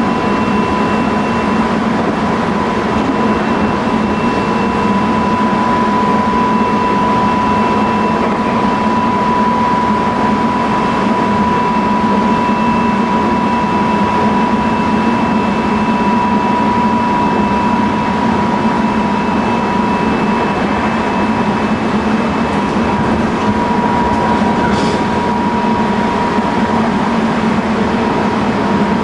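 Running noise inside a Tobu 20050 series commuter train car at steady speed: a continuous rumble of wheels on rail, with a steady high whine that holds one pitch throughout.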